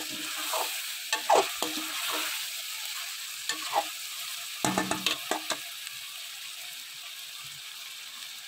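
Chicken pieces sizzling in hot oil in a metal kadai while ginger-garlic paste fries with them. A metal spatula scrapes and clinks against the pan in quick clusters about a second in and again around five seconds in.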